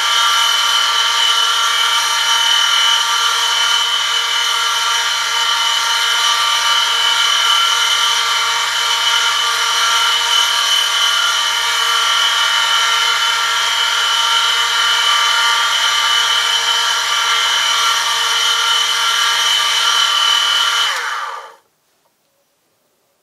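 Electric motor of an oil friction-test rig turning a shaft against a metal sample loaded through a lever with 1 kg, giving a loud, steady high whine of oil-lubricated metal-on-metal rubbing over a low motor hum. Near the end the motor is switched off: the whine drops briefly in pitch and cuts out.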